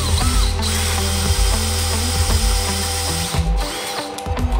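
Cordless drill turning a hole saw that cuts through sheet metal, throwing chips, with rock music playing underneath. The drill briefly pauses a couple of times near the end.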